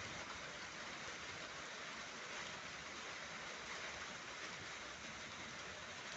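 Steady rain falling in a thunderstorm, an even hiss with no thunder.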